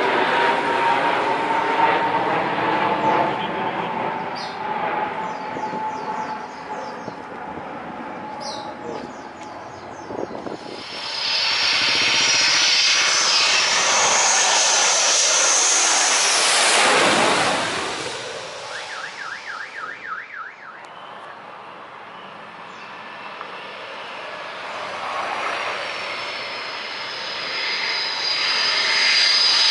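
Sukhoi Su-27/Su-30 fighter jets' twin turbofan engines passing low overhead on landing approach. Jet noise fades over the first ten seconds, then one jet passes loudly with a high whine that peaks about 14 to 17 seconds in and falls away. Near the end another jet approaches, its whine growing louder.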